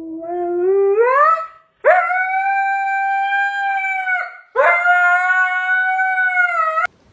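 A husky-type dog howling: a low call that climbs steeply in pitch, then two long, held howls. The last howl cuts off suddenly near the end.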